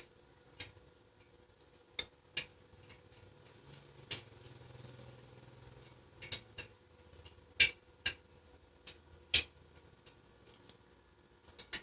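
Irregular sharp clicks and taps of metal parts and hand tools being handled, about a dozen, with a faint low hum for a couple of seconds near the middle.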